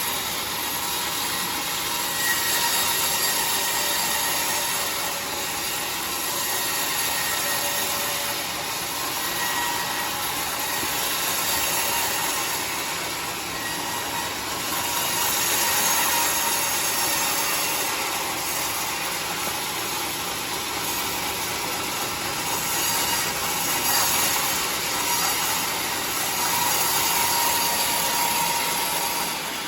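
Homemade band sawmill running, its blade sawing steadily through a large trembesi (rain tree) log.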